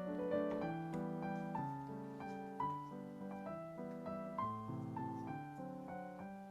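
Background piano music: a gentle melody over soft chords, notes struck every fraction of a second.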